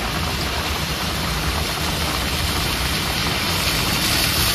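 Heavy rain falling steadily, with a low rumble beneath it.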